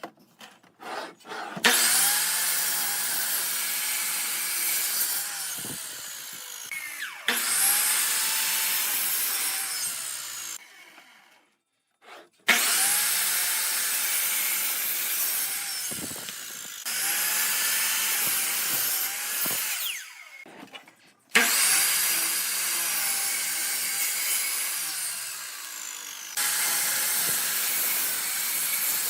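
Electric power tool working wood in three long passes, each starting suddenly with a short gap between them, the motor running under load throughout.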